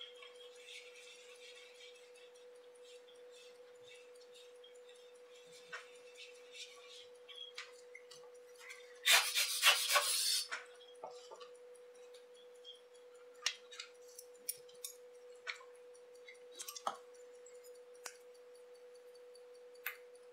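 Faint small clicks and light handling noises on a watchmaker's bench, with one brief louder rustle about halfway through, over a steady faint hum.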